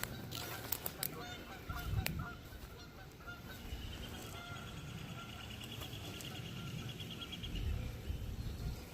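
Wild birds calling: short honking calls in the first few seconds, then a rapid, evenly pulsed trill that starts about halfway in and lasts about four seconds, over low rumbling noise.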